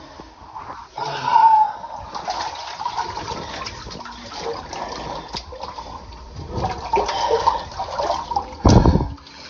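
Water sloshing and splashing in a cave pool, with an uneven run of small surges and a heavier thump near the end.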